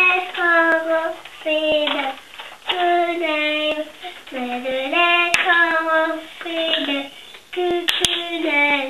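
A small child of about three and a half singing to herself in a high voice, short phrases of held notes that slide between pitches. A few sharp clicks sound in among the phrases.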